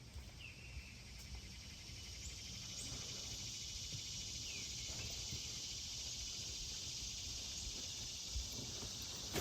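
Insects in a steady, high-pitched buzzing chorus that swells about two seconds in and then holds level, with a few faint short chirps over it.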